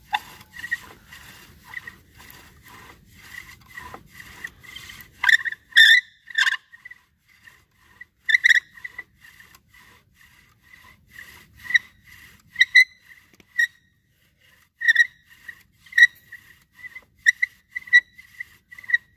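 Bow drill worked for a friction fire: the wooden spindle squeaks and rubs against the hearth board with each stroke of the bow, louder from about five seconds in. The drilling is heating the wood enough to pull smoke from it.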